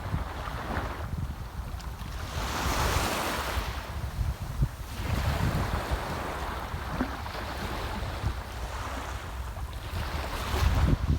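Sea waves washing onto the shore, the hiss of the surf swelling and fading every few seconds. Wind buffets the microphone with a low rumble, hardest near the end.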